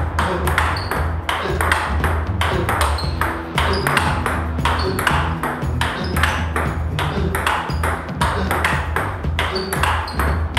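Table tennis rally: the plastic ball clicking off the two bats and the table in quick, even alternation, about three clicks a second.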